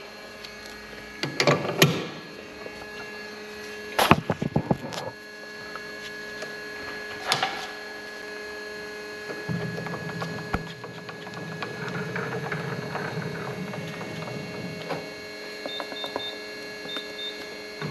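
Steady hum of workshop machinery, with scattered knocks and clicks from setting up a test piece: a burst of knocks about 1.5 s in, a rapid series about 4 s in and a single knock about 7.5 s in. A rougher working noise follows for a few seconds, and a few faint short beeps sound near the end.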